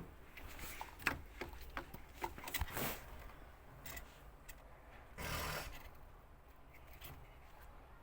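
Scattered clicks, knocks and scrapes of parts being handled, with a short rushing noise about five seconds in.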